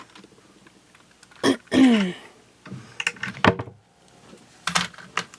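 Handling noise from the camera being moved on a craft table: a few sharp clicks and knocks, with a brief wordless vocal sound, like a throat-clear, about a second and a half in.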